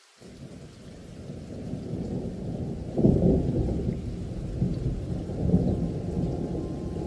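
A low rumble like rolling thunder fades in, builds, and swells sharply about three seconds in.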